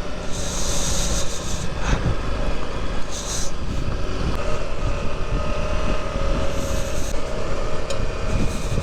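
Off-road motorcycle engine running steadily while riding a dirt trail, with a low rumble and a held engine tone. A few short hisses come over it.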